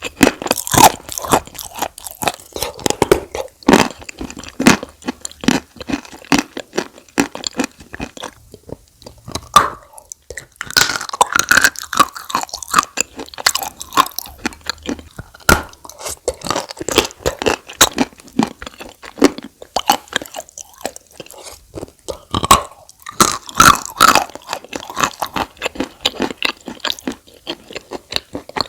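Close-miked chewing and crunching of chalk coated in Turkestan clay paste: dense, irregular crunchy crackles, with a couple of short pauses between bites.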